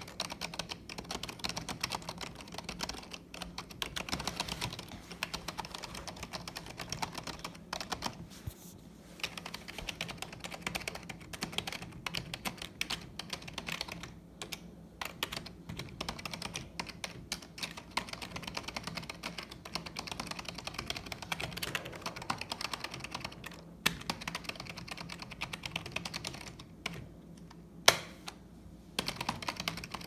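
Fast typing on a white Logitech computer keyboard: dense key clatter in long flurries with a few brief pauses. Two sharper, louder key clacks come in the last third.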